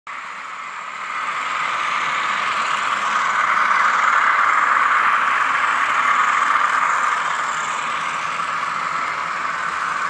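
N gauge model diesel locomotives with Zimo sound decoders running, their small on-board speakers playing recorded diesel engine sound that is thin, with little bass. It swells louder about a second in and eases off slightly after about seven seconds.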